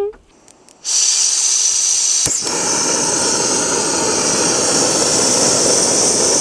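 Backpacking canister stove burner running steadily under a pot, a loud even hiss that starts about a second in, with a single sharp click a little over a second later.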